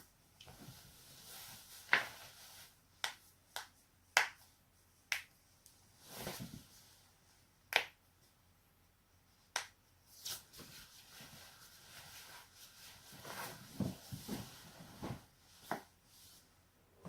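Neck and back joints being cracked: about ten sharp pops spaced irregularly, with soft rustling of movement between them.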